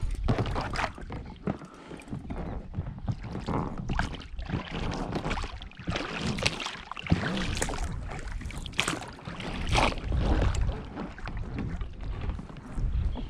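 Scattered knocks and clatter of handling gear in a small boat, over a steady low rumble of wind on the microphone.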